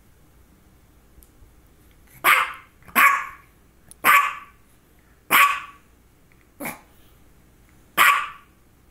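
Small white long-haired dog barking: six short, sharp single barks roughly a second apart, starting about two seconds in, the fifth one softer.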